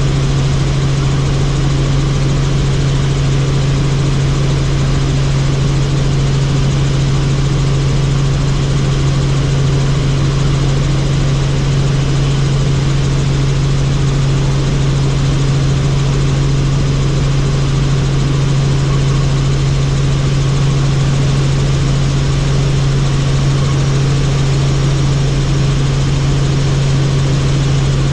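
Helicopter engine and rotors running, a loud, steady drone with a strong low hum.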